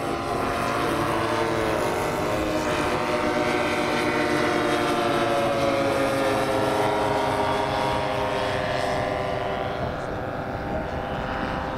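Several radio-controlled scale model aircraft flying past together, the engines of the different models running at once in overlapping steady tones. Their pitches slide downward as they pass, with a gradual fall in the middle of the flypast.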